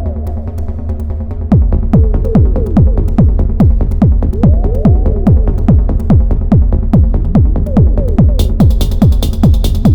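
Elektron Model:Cycles groovebox playing a techno pattern: a steady bass under a fast rhythm of percussive hits that drop quickly in pitch. The full beat comes back in louder about a second and a half in, and hi-hats join near the end.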